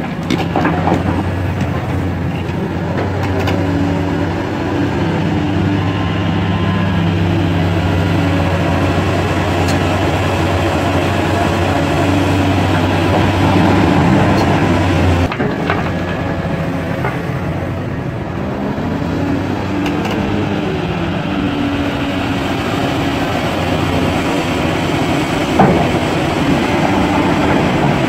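Large hydraulic excavator's diesel engine running steadily as it works a rubble pile, its low hum changing abruptly about halfway, with one sharp knock near the end.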